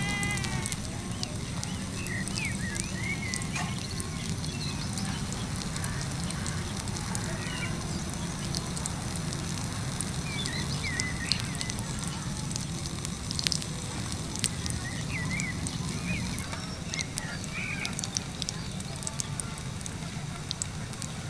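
Bakwan batter frying in hot oil in a miniature aluminium wok, crackling with scattered sharp pops that become more frequent about halfway through as pieces of batter go into the oil.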